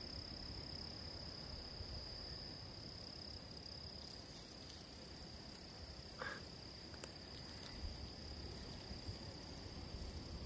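Night insects trilling steadily at one high pitch, faint, with a short soft rustle about six seconds in.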